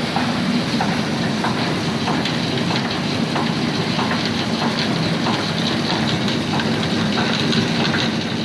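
Soybean washing machine for tempeh running its first wash, soybeans churning in water. A steady machine hum runs under many small rapid ticks.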